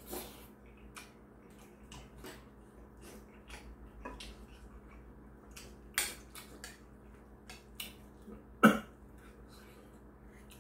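Eating sounds: a metal spoon tapping and scraping in a ceramic bowl of rice and stew, heard as scattered soft clicks, with one louder sharp sound near the end.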